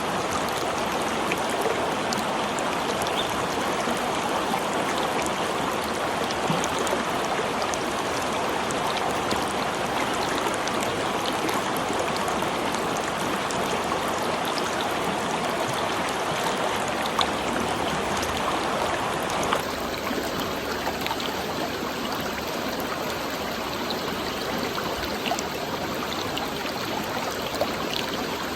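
Flowing water: a steady, even rush with small splashes and drips scattered through it. About two-thirds of the way through, the sound abruptly shifts and becomes a little quieter.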